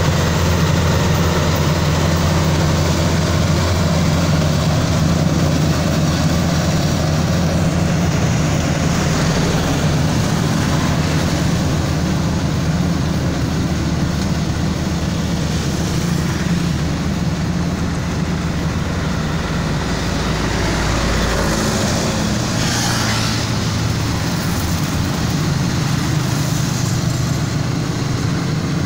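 Crawler rice combine harvester running steadily as it harvests and threshes rice, a continuous low engine drone with machinery noise over it. A brief swell of louder rushing noise comes about 22 seconds in.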